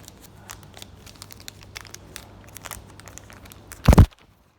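Light crackling and clicking handling noises, then one loud knock just under four seconds in, followed by a brief gap of near silence.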